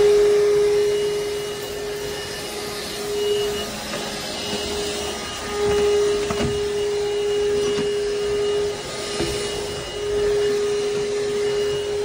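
Cordless stick vacuum cleaner running as it is pushed back and forth over a hard wood floor. Its motor gives a steady whine over a rush of air that dips briefly a few times.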